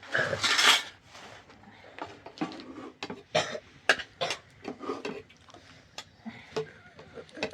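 Clatter of dishes and utensils being handled: a loud scraping rush in the first second, then a series of separate sharp clinks and knocks.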